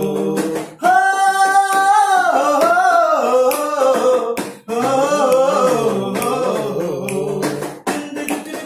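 A man's voice singing unaccompanied in a small room, drawing out long, ornamented notes of a Bengali folk song that bend up and down. The voice breaks off briefly twice, about a second in and again near the middle.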